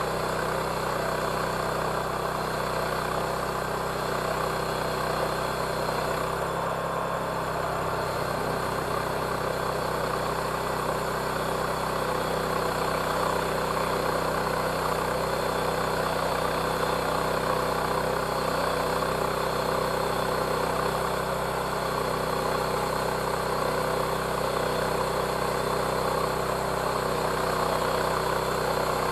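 Engine of a homemade sawmill running steadily while the blade saws a board off a hemlock log.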